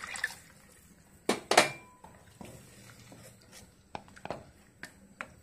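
Wooden spatula stirring vegetables in water in a frying pan, knocking and scraping against the pan. There is a last splash of poured water at the very start, two louder knocks about a second and a half in with a brief ring from the pan, then softer taps.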